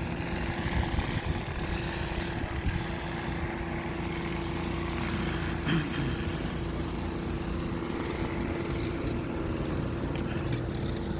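An engine running steadily, with a constant hum over a noisy rumble.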